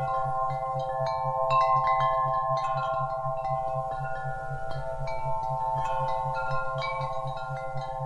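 Wind chimes ringing: many tones of different pitch struck again and again and ringing on over one another. Under them a low electronic tone pulses on and off at an even rate, several times a second, as an isochronic tone.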